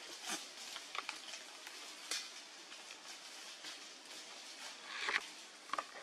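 Outdoor forest background hiss with scattered short rustles and crackles of dry leaf litter as monkeys move on the ground. A louder cluster of rustling comes about five seconds in.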